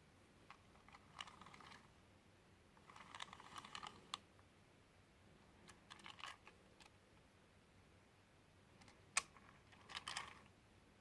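Faint clicking and rattling of hard plastic in four short clusters, as a plastic toy bulldozer is handled, with two sharper ticks near the end.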